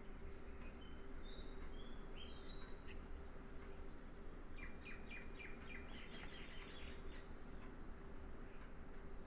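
Faint bird chirps: a few short whistled notes in the first few seconds, then a quick run of chirps near the middle, over a steady low hum.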